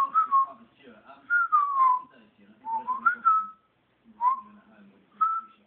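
A person whistling short phrases of sliding notes with pauses between them: one that falls, one that rises, then two brief whistles near the end.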